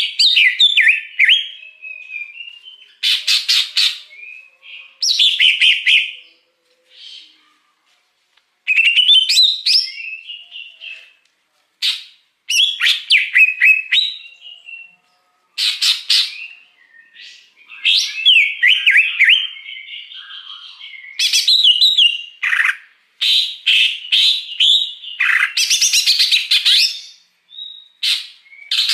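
Green leafbird (cucak hijau) singing: loud bursts of varied chirps, sweeping whistles and fast trills, phrase after phrase with short pauses between.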